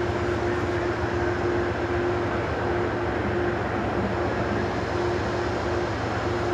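Diesel locomotive engine running hard during a self-load test, a steady heavy drone with a held tone over it that drops in and out.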